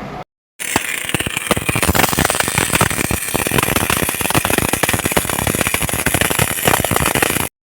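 MIG welding arc crackling steadily on mild steel plate, 1.2 mm wire at about 125 amps and 21.8 volts. It starts about half a second in and cuts off abruptly near the end.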